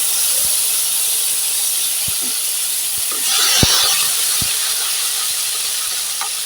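Spices sizzling in hot oil in a karai: a steady frying hiss, swelling briefly about three and a half seconds in, with a few sharp ticks through it.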